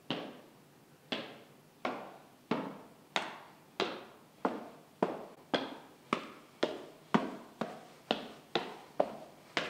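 Footsteps echoing in a lecture theatre: a steady series of sharp steps that get louder and come a little faster, as a walker approaches and passes close by near the end.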